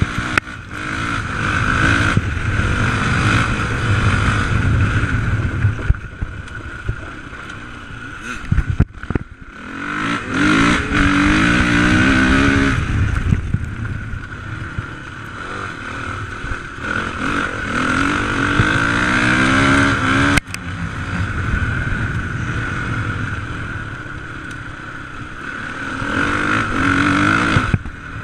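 Suzuki RMX450Z's single-cylinder four-stroke engine revving up and dropping back again and again as the bike is ridden hard off-road, heard from on the bike, with a couple of abrupt breaks.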